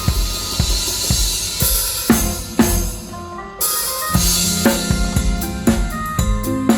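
Live band playing an instrumental passage with the drum kit to the fore: steady kick and snare strokes under cymbal wash, with keyboard or bass notes held beneath. The cymbals cut off briefly about three and a half seconds in, and a loud hit brings them back.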